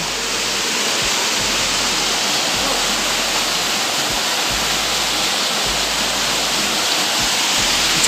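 Small waterfall pouring down a rock gorge, a steady rushing of falling water.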